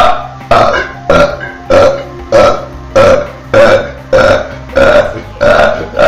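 A run of about eleven short, loud burps, one after another at an even pace of a little under two a second.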